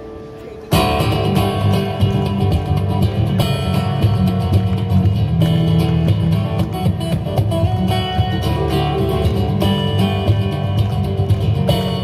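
Acoustic guitar played fingerstyle through an amplifier, with sharp percussive hits among the notes and a strong bass. It starts abruptly about a second in after a quiet moment.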